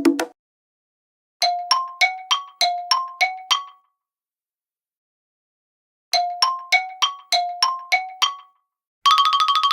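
iPhone classic ringtone: a chime melody of eight bell-like notes that ring on, played twice with a silent gap between. Near the end a fast electronic trill ringtone begins.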